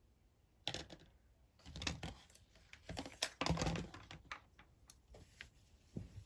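Slime being handled by hand: irregular sticky clicks and squishes, busiest about three and a half seconds in.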